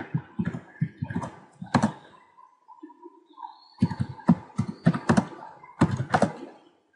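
Typing on a computer keyboard: two quick runs of keystrokes with a pause of about a second and a half between them.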